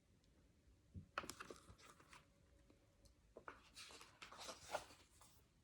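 Faint rustling and handling of paper: the pages of a picture book being turned.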